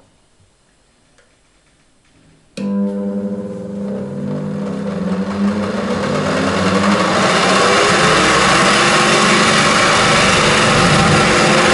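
Soviet Salyut electric centrifugal juicer (SVPR-201) switched on about two and a half seconds in: its motor starts with a sudden hum and spins up into a loud, rough whirring that builds until about seven seconds in and then runs steady.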